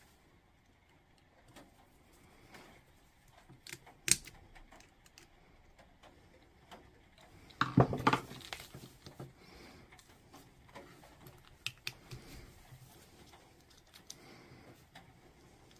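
Small clicks and plastic taps from a fused three-pin mains plug being wired: a screwdriver at the terminal screws and the plug body being handled. There is a sharp click about four seconds in and a louder cluster of clatter around eight seconds.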